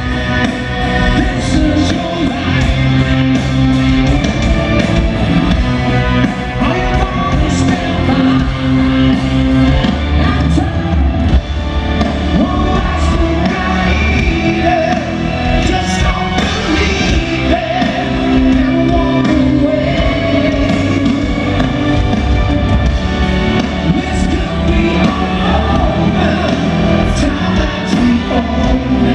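Rock band playing live with a lead singer, a full band with drums, bass and sung vocals running on without a break.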